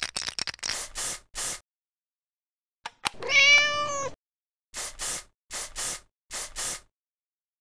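A domestic cat meowing once, a single call just under a second long, with a run of short scratchy rustles before it and six brief rasping strokes in three pairs after it.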